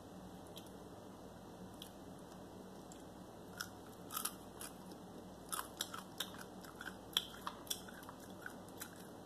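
Crispy fried chicken being bitten and chewed close up. It is quiet at first, then a run of short crunches starts about three and a half seconds in.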